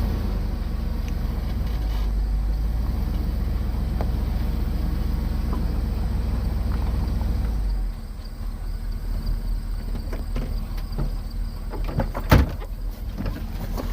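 A motor engine running with a steady low rumble that drops off sharply about eight seconds in. Scattered knocks follow, with one sharp bang near the end.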